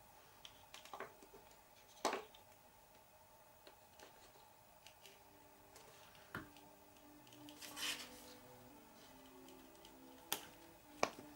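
Quiet handling of an RC truck's chassis and small parts on a workbench: a few scattered light clicks and knocks, and a brief rustle about eight seconds in.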